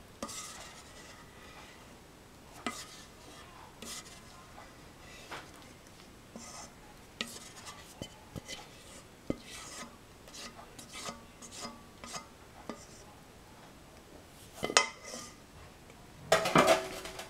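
Kitchen utensils scraping and clinking against cookware: scattered light scrapes and clicks, with a louder burst of clattering near the end.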